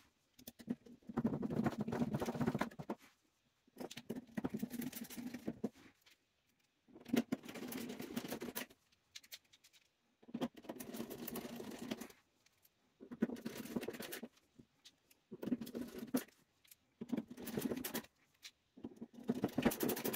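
Hand screwdriver driving screws into a metal airsoft gearbox shell: bursts of scraping and grinding as the screws are turned in, about eight times, each a second or two long with short pauses between.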